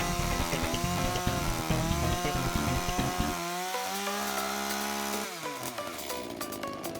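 Two-stroke chainsaw cutting wood, its engine note wavering under load. About three and a half seconds in, the saw comes free and runs at a steadier, higher note, then winds down and stops about five seconds in.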